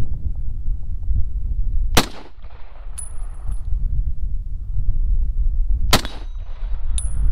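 Two shots from an M1 Garand's .30-06 rifle about four seconds apart. About a second after each comes the high ring of a distant steel target being hit. Wind buffets the microphone with a low rumble throughout.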